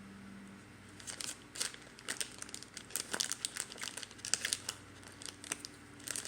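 Candy wrapper crinkling as it is handled and opened, a rapid, irregular run of crackles starting about a second in.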